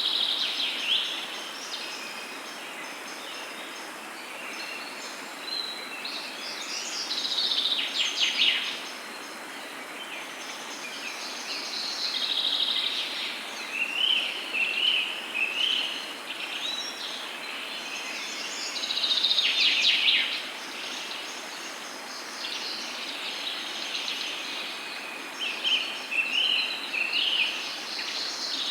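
Several birds singing and chirping over a steady background hiss of outdoor ambience, in phrases that come and go every few seconds.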